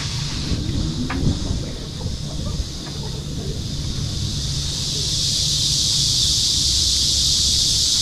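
Cicadas buzzing: a steady high-pitched drone that grows louder about halfway through, over a low rumble.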